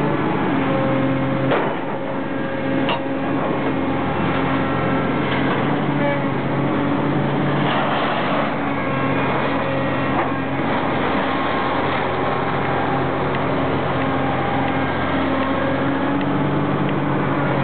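Komatsu PC300LC-6L hydraulic excavator's six-cylinder diesel engine running steadily, with a couple of sharp clicks in the first few seconds.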